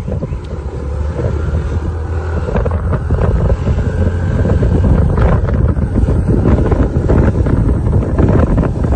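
Wind buffeting the microphone on a moving two-wheeler, with engine and road noise underneath, growing louder over the first few seconds as it picks up speed.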